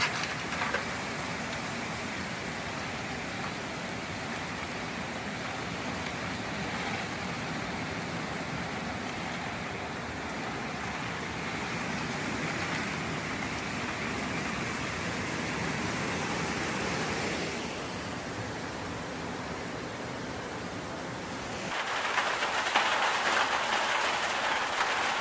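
Hurricane wind and rain as a steady, even rushing hiss. About 22 seconds in it changes abruptly to a louder, higher hiss.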